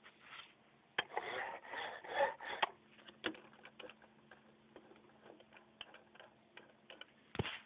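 A fuel level sensor's float arm is worked by hand, its wiper scraping and clicking across the contacts. A sharp click about a second in leads into a scratchy stretch, then scattered light ticks.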